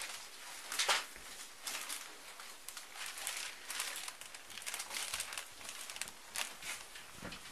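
Clear plastic evidence bags crinkling and rustling as they are handled with gloved hands, in short irregular bursts, the loudest about a second in.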